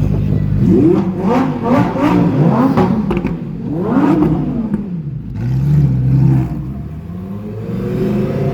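Lamborghini supercar engine being revved: several quick throttle blips, the pitch rising and falling sharply, then holding steadier before climbing again near the end.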